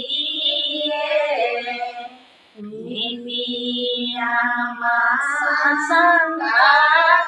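Women singing a devotional nam (hymn) in the Tai language, with a short break for breath about two seconds in.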